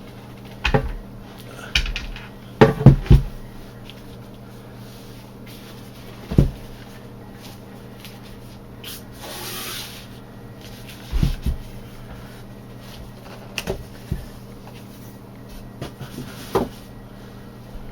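Irregular knocks and bumps of a JBL speaker driver being handled and fitted back into its speaker cabinet, with a loud cluster of knocks about three seconds in. A brief hiss near the middle.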